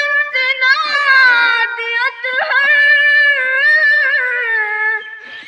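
A girl's high voice singing long, drawn-out notes, each held for a second or more with a slight waver, the pitch sinking and fading near the end.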